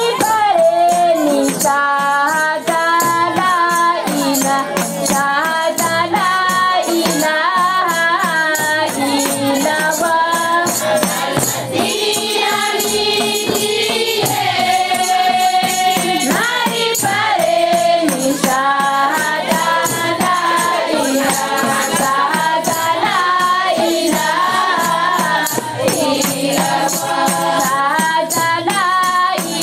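A women's chorus singing a deba, the sung devotional chant of Mayotte and the Comoros, the melody carried by many voices together over a steady beat of sharp percussion strokes.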